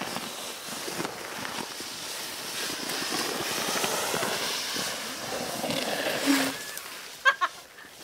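Rough scraping hiss of a person's clothing sliding down a frozen waterfall over ice and packed snow. There are two short, sharp loud sounds about seven seconds in.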